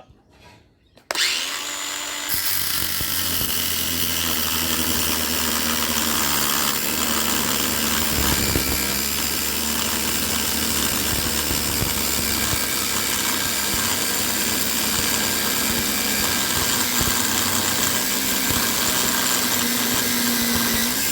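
Angle grinder spinning up about a second in, then running steadily as it cuts through metal, stopping at the end.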